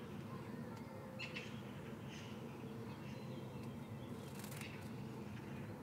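A few short, faint bird chirps over steady low background noise, with a few soft clicks about four seconds in.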